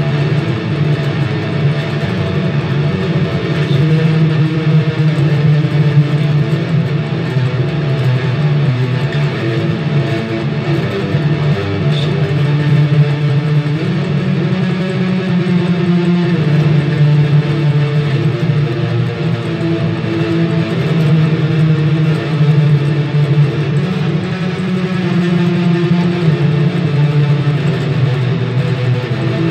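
Electric guitar played through a Little River Customs Stranger Things fuzz delay pedal, a Randall RH150 amp head on its clean channel and a Fender Metal Head cabinet. Loud, held low notes and chords that change every few seconds, with no break.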